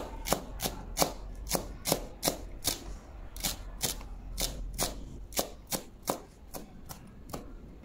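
Kitchen knife chopping fresh coriander on a cutting board, in a steady run of sharp knocks about three a second.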